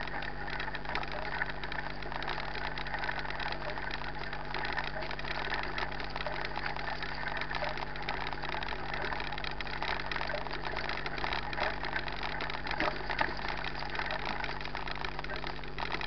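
Mountain bike rolling over a dirt and gravel trail: continuous tyre noise and rapid small rattles and clicks from the bike, heard over a steady low hum.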